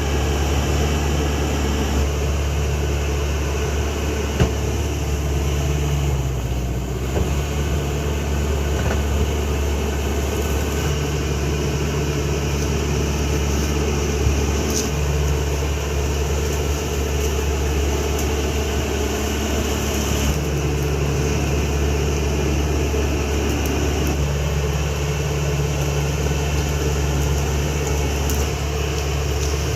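CAT D5K XL bulldozer's diesel engine running steadily under working load, with a few sharp knocks about four, seven and fourteen seconds in.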